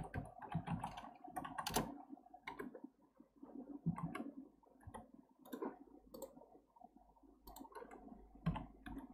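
Computer keyboard keys and mouse buttons clicking irregularly, a few quick clicks at a time, while keyboard shortcuts are typed and the mouse is used.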